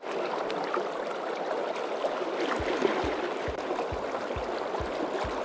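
River water rushing over a shallow, steady noise. From about halfway in, low regular thumps about twice a second join underneath.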